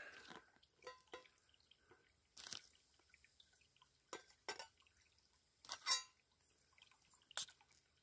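Faint clinks and scrapes of a metal spoon and lid against a stainless steel camp kettle as the lid comes off and cooked noodles in broth are stirred; about seven short sounds, one with a brief metallic ring about six seconds in.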